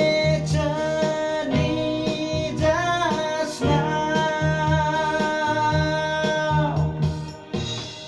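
A voice singing the song's closing line, ending on a long held note, over a plucked guitar accompaniment. The music stops shortly before the end.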